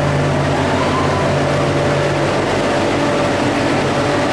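Kalka–Shimla narrow-gauge toy train, a steady drone of engine hum and running noise.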